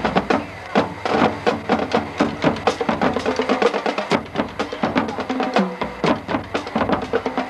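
High school marching band playing, a busy drum line of sharp, rapid snare and rim hits over held notes.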